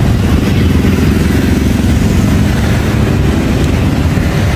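Motorbike engine running close by, a loud steady low rumble, over street traffic.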